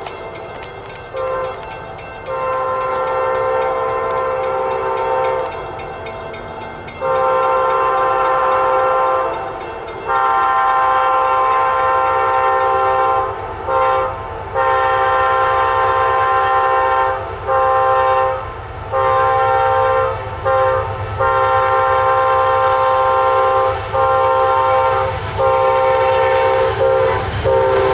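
Horn of an approaching Amtrak GE P42DC diesel locomotive sounding a long series of blasts, mostly long with a few short ones, a steady chord of several notes. The low rumble of the train builds underneath as it draws near.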